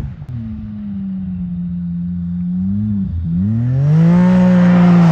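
Can-Am Maverick X3's turbocharged three-cylinder engine running at high, steady revs, dipping briefly about three seconds in, then climbing again louder. A hiss of spray joins it near the end as the machine skims across open water.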